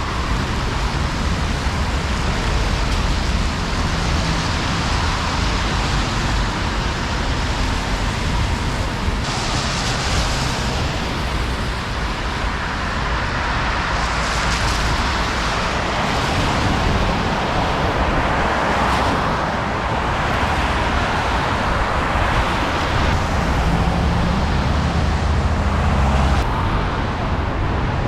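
Steady road traffic noise on a city street: a continuous rush of passing cars with a heavy low rumble.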